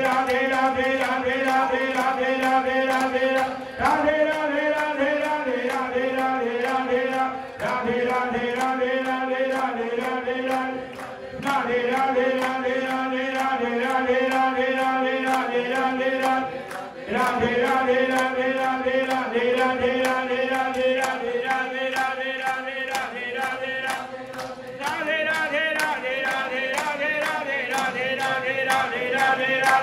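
Devotional chanting of divine names (kirtan), voices holding long notes in phrases of a few seconds each, over a steady percussive beat.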